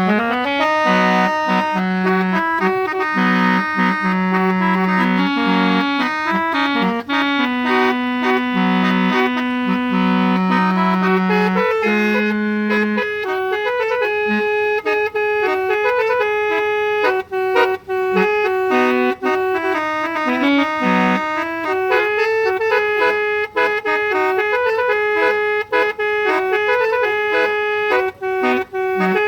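Instrumental music with a reedy, accordion- or organ-like sound: a melody over held lower notes, the low note dropping out about halfway through.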